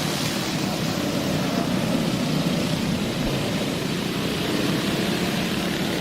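Dirt-track racing go-kart engines running steadily, a continuous engine drone mixed with noise.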